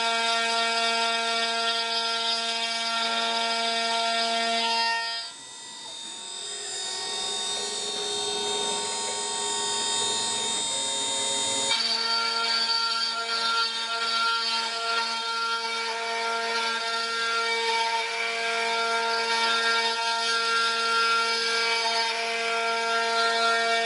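High-speed router spindle on a CNC wood lathe whining steadily as it carves into a turning wooden log, with the noise of wood being cut. The whine drops away about five seconds in and comes back a little before halfway through.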